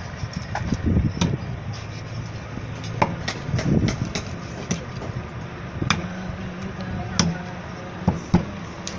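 A large knife chopping a big fish into steaks: about seven sharp knocks of the blade through the fish and onto the chopping block, irregularly spaced about a second apart, over a steady low hum.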